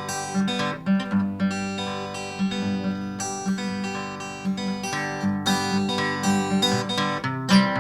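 Acoustic guitar strummed in a steady rhythm, playing an instrumental break between sung verses of a folk song.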